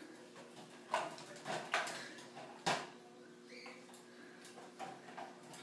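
A few short knocks and clatters from a plastic gerbil exercise ball rolling and bumping on a tile floor, the sharpest a little under three seconds in.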